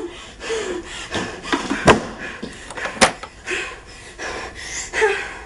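Two sharp knocks or bangs about a second apart, amid short breathy vocal sounds like gasps.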